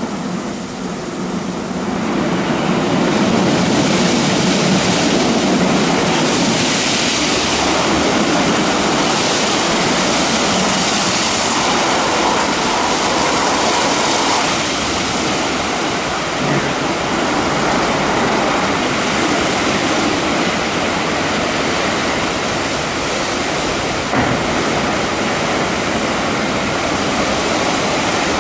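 WashTec EasyWash portal car wash at work on a car: spinning brushes and water spray make a steady rushing noise, which swells over the first two seconds and then holds.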